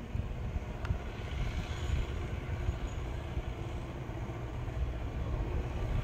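Low, steady rumble of an approaching EMU electric local train, still far down the line, growing a little louder near the end.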